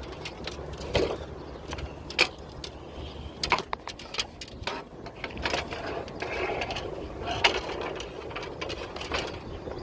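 Coiled copper refrigerant line set being unrolled and straightened by hand: irregular clicks, taps and knocks of the tubing, with some scraping and rubbing in the middle.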